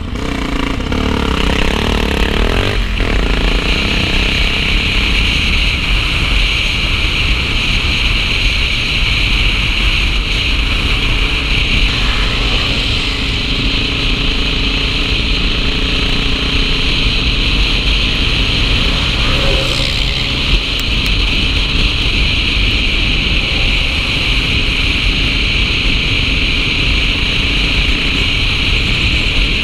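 Yamaha XT660Z Ténéré single-cylinder motorcycle engine running as the bike is ridden along a dirt track, its revs rising in the first few seconds, under a steady rush of wind over the helmet-mounted microphone.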